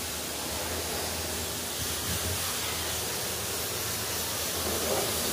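Self-serve car wash pressure wand spraying water over a car: a steady hiss of spray.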